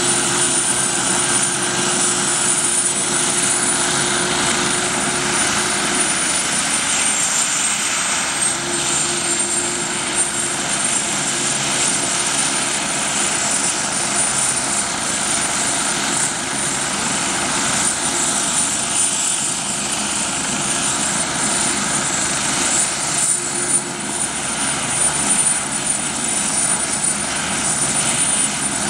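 Twin-turbine Agusta A109 air-ambulance helicopter running on the ground with its rotors turning: a loud, steady rotor and engine roar under a high turbine whine. The whine's pitch dips slightly about seven seconds in.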